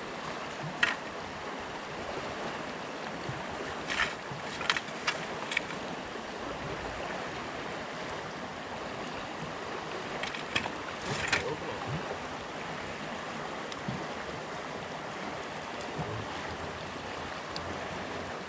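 Steady rush of water running through a lake spillway, with a few short, sharp clicks about four to six seconds in and again around eleven seconds.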